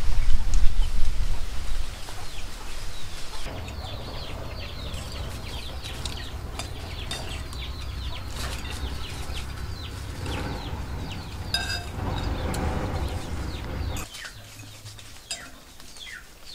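Chickens clucking and chicks peeping: many short, falling peeps over a low rumble, with a loud rush of noise in the first two seconds. A light clink of a fork on a plate rings out once, about eleven and a half seconds in.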